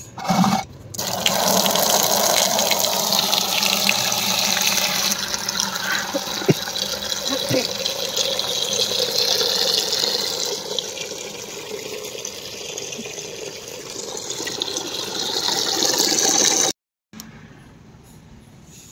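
Water running from a plastic wall tap into a plastic bucket as it fills, a steady stream that stops suddenly near the end, leaving quieter outdoor background.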